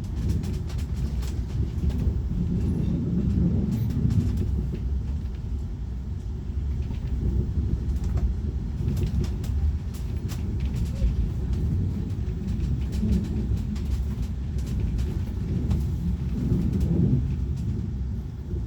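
Train running with a steady low rumble, with faint scattered clicks and rattles over it.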